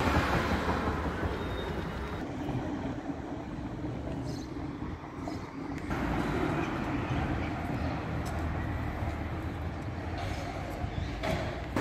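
Steady rumble of city street traffic, with a tram running on the street's rails. It gets a little louder about halfway through.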